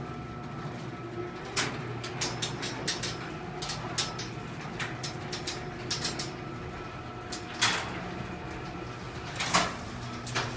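Motorized garage door closing: a steady motor hum under a run of rattling clicks, with two louder knocks late on.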